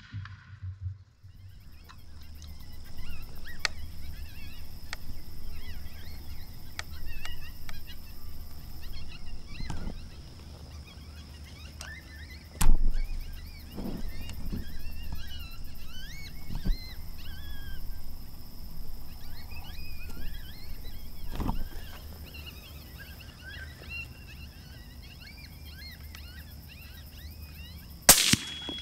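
Birds chirping and singing all through, over a steady high-pitched whine and a low background hum. A few sharp cracks break in, the loudest about halfway through and another strong one near the end.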